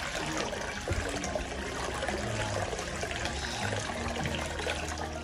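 Water trickling and running steadily into a foot-washing basin.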